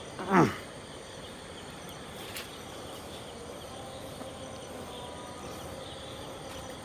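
Steady night chorus of crickets and other insects, a thin continuous high chirring. A short falling vocal sound at the very start and a faint click a little over two seconds in.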